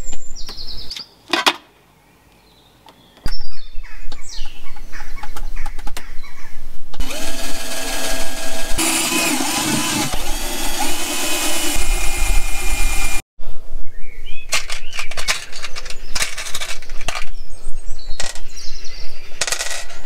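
Cordless drill boring through the thin sheet-metal lid of a storage box, its motor whining steadily for about six seconds in the middle. Before and after it, short metallic clicks and clinks of loose steel screws being handled.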